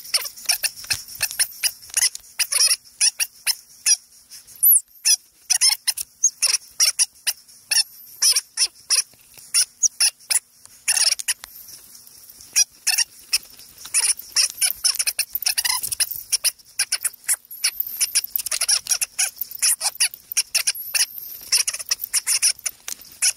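Dry, stiff scrub scratching and rustling against clothing as a person pushes through it on foot: quick, irregular scrapes and crackles, one after another.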